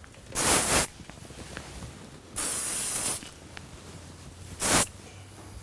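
Aerosol hairspray can sprayed onto a section of hair in three short hissing bursts, the middle one the longest.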